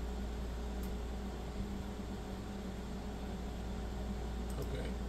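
Steady room hum of running fans and electrical equipment, with a few faint clicks near the end.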